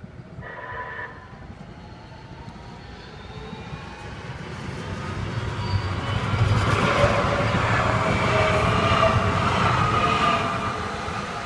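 LA Metro light-rail train approaching and passing close by: steel wheels rumbling on the rails with some squealing tones, building over several seconds, loudest from about six to ten seconds in, then easing off. A short horn note sounds about half a second in.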